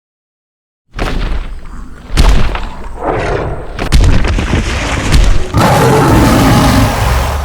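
Designed sound effect of a giant creature's footsteps: four heavy, booming stomps about a second and a half apart, layered with dense rumbling noise. After the last stomp comes a long, loud sustained noise.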